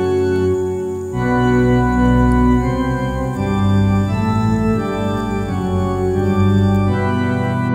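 Intro music on an electric organ: sustained chords changing every second or so, with a deep bass coming in about a second in.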